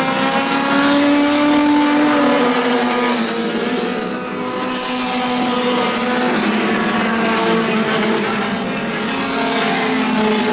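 A pack of four-cylinder dirt-track stock cars racing at speed. Several engines run at once, their pitches gliding up and down as the cars sweep past a few times.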